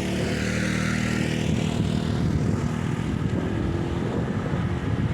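An engine passing by, running steadily, its hiss sweeping down and back up as it goes past.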